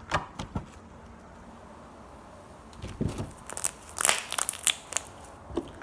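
Purple slime being kneaded and squeezed by hand: a few sharp clicks at the start, a quiet spell, then a run of crackling clicks and pops from about three seconds in as it is lifted and squished.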